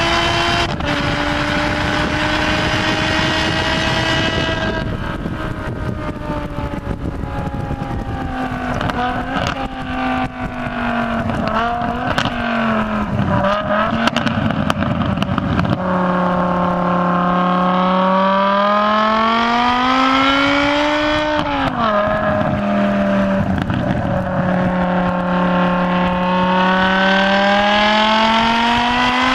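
BMW M6's engine driven hard on a race track: high and steady at first with a sudden drop in pitch about a second in, as at a gear change. It then falls away and wavers, with quick sharp jumps and dips in pitch through the corners, and climbs steadily again in pitch near the end as the car accelerates, over a rush of wind and road noise.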